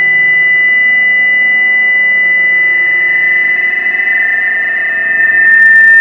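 A steady high-pitched electronic drone, a pure tone with a fainter tone above it. Its pitch sags slightly about halfway through, and a short crackle comes near the end.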